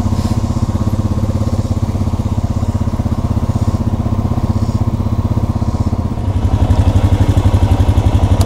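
ATV (four-wheeler) engines running at low speed with a steady, even pulse as the quads roll along. About six seconds in the engine sound gets louder and deeper.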